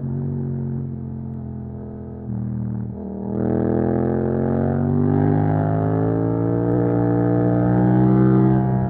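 Yamaha MT-07 parallel-twin engine through an Akrapovič exhaust, accelerating. A short break in the engine note about three seconds in as it shifts gear, then a long steady rise in pitch under throttle that eases off near the end.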